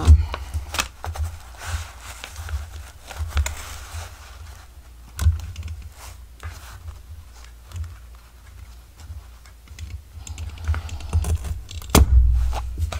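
Irregular small taps, clicks and light thumps of paper and a hand tool being handled on a desk as stitching holes are made along a journal's paper spine, with a heavier thump near the end.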